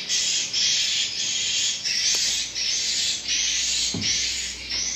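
Swiftlets chirping inside a swiftlet house: a fast, regular series of buzzy, hissing chirps, about two a second. A short low knock sounds near the end.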